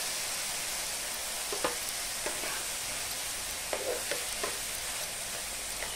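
Banana pieces sizzling in ghee in a frying pan on low flame, with a steel spatula scraping and tapping against the pan several times as they are stirred.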